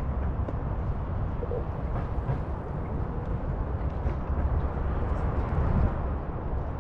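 Steady rumble of wind on the microphone and road noise while riding a Onewheel GT electric board along a paved path.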